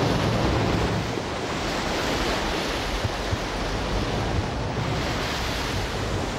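Surf breaking and washing over a pebble shore: a steady rush of water and spray.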